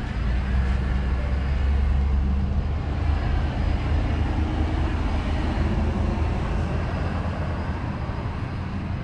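Toyota Tacoma pickup driving at low speed, a steady low engine and road rumble.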